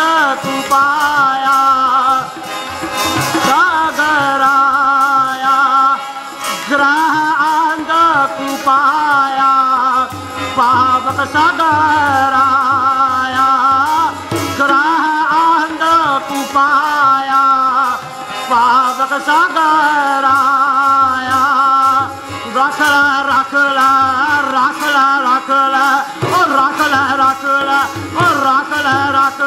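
Sikh kirtan: harmoniums play a melody with tabla keeping a steady rhythm, the bass drum's deep tone pulsing under it, while a man sings the hymn at the microphone.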